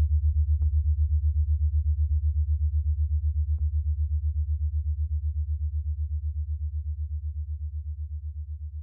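Low electronic synthesizer tone pulsing rapidly and evenly, slowly fading. A couple of faint ticks sound in the first few seconds.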